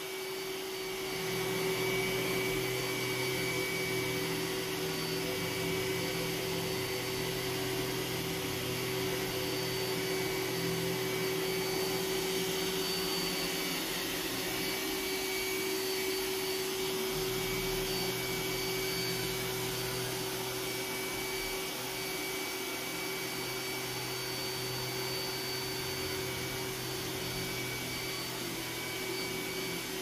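iRobot Roomba s9 robot vacuum running on its high-power setting while cleaning thick, high-pile carpet: a steady motor whine with lower humming that fades and returns about halfway through.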